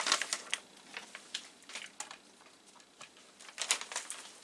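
Plastic anti-static bag crinkling and rustling in short, scattered bursts as a circuit board is slid out of it, busiest about three and a half seconds in.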